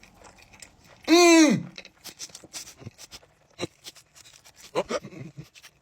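A person chewing a huge mouthful of burrito, with one loud, muffled closed-mouth vocal sound that rises then falls in pitch about a second in, followed by a run of short wet mouth clicks and smacks and a couple of brief grunts near the end.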